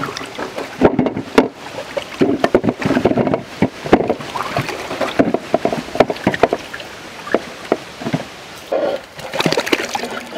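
Water splashing and sloshing in a large metal basin as hands scrub apples and then mangoes, with many short, irregular splashes.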